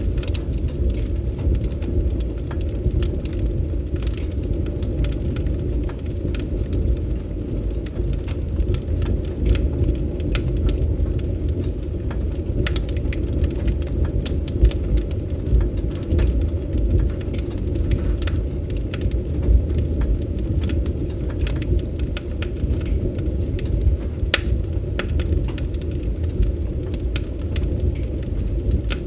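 Fireplace fire crackling: irregular sharp pops and snaps over a steady low rumble of burning.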